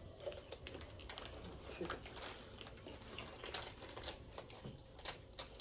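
Snack packaging being opened and handled, with light, irregular clicks and crackles of plastic wrapper.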